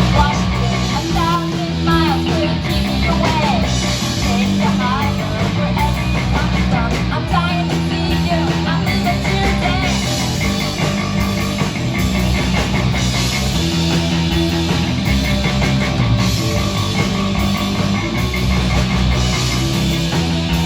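Live punk rock band playing loud, with electric guitars over bass and drums.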